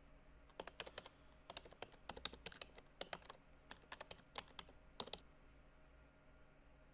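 Typing on a computer keyboard: a run of irregular key clicks that starts about half a second in and stops about five seconds in.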